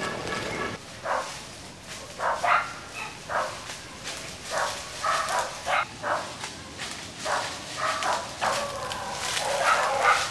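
A dog barking repeatedly in short, irregular bursts, coming thicker near the end.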